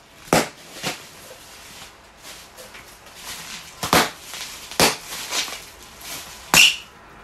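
Inflated plastic air-pillow packing cushions being squeezed by hand and burst, giving several sharp pops with crinkling plastic between them.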